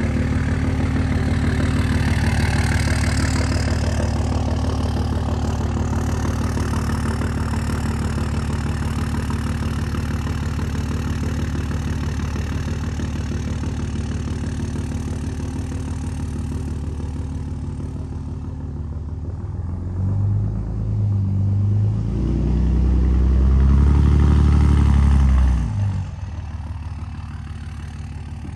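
Pickup truck engine running at a steady low speed as the truck pulls away along a dirt track, slowly fading. About twenty seconds in, the engine revs up and down louder for several seconds, then drops back to a quieter steady run.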